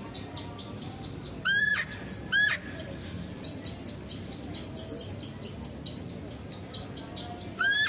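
Chital (spotted deer) calling with short, high-pitched squeals: two close together about a second and a half in, and another near the end.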